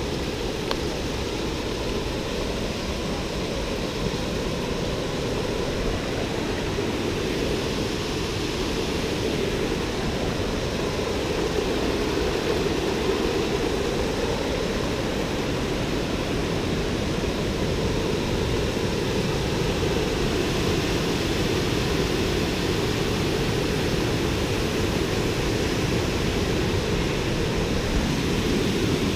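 Waterfall: falling water rushing steadily, a continuous, unbroken noise that is heaviest in the low range and grows slightly louder through the second half.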